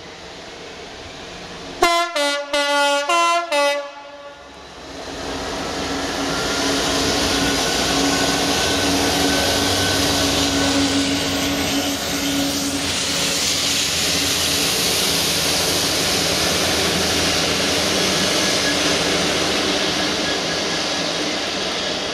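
A GB Railfreight Class 66 diesel locomotive sounds its two-tone horn in about five short blasts, about two seconds in. Then the train passes close by: the locomotive's EMD two-stroke V12 diesel runs under load with a steady low drone, amid heavy wheel and wagon noise.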